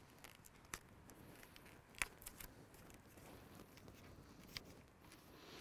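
Near silence with a few faint, scattered clicks and rustles, the clearest about two seconds in, as duct tape is handled and wrapped around the joint between two fishing rod sections.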